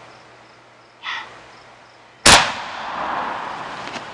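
A firework shell bursting with one sharp bang about two seconds in, its echo rolling on and dying away over the next couple of seconds.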